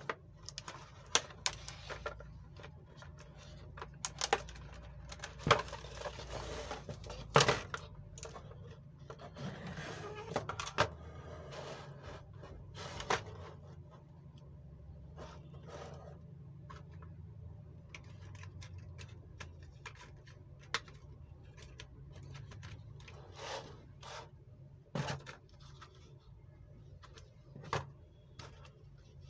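Trays of a stacked hexagonal art set being lifted apart and set down on a table: scattered sharp clicks and knocks, with short stretches of rustling, over a steady low hum.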